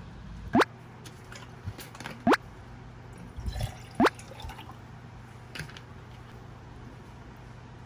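Three water drops plinking into water, each a quick rising 'bloop', spaced a little under two seconds apart.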